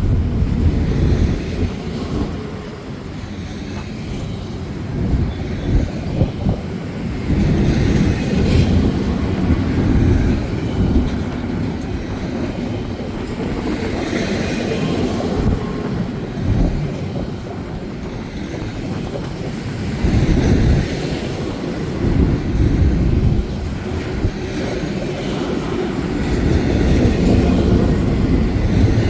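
BNSF intermodal freight train rolling past: a steady loud rumble of steel wheels on rail that swells and eases, with scattered knocks.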